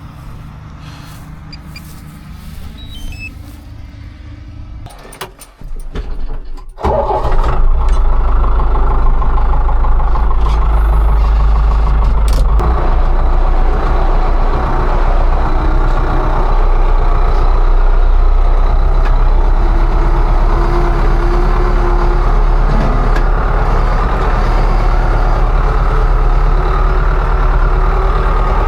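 Heavy farm-machinery diesel engine running: a moderate low hum at first, then much louder and steady from about seven seconds in.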